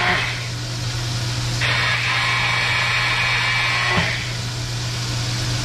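Electric blender pureeing roasted chiles and tomatillos, run in two pulses: a brief one at the start and a longer one of about two and a half seconds from a second and a half in. A steady low hum sits underneath.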